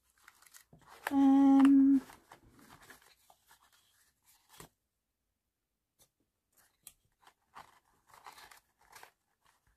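A woman's short, steady hummed "mmm" lasting about a second, then faint rustling and light ticks of paper cards and envelopes being leafed through inside a small box.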